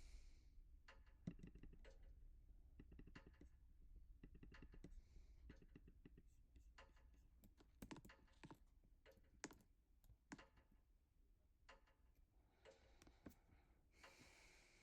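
Ceiling fans running on high speed, very faint: a low steady hum with scattered light, irregular clicks and ticks.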